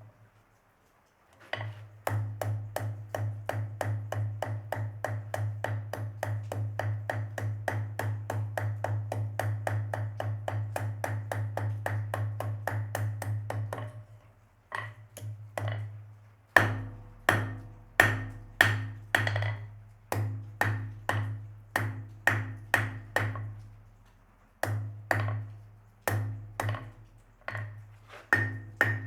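Blacksmith's hammer striking hot steel on an anvil, each blow ringing: first a fast, even run of light blows, about four or five a second, then after a short pause slower, heavier blows, about two a second, broken by one brief pause.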